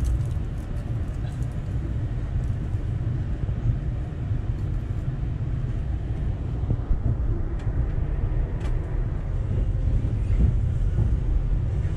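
Steady low rumble heard inside a moving Amtrak passenger train car as it runs along the track, with a few faint clicks in the second half.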